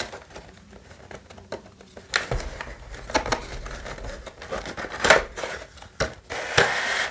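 Cardboard Yu-Gi-Oh! Duel Overload box being opened by hand: its flaps are pried apart and the card stock rubs and scrapes, with a sharp click about five seconds in.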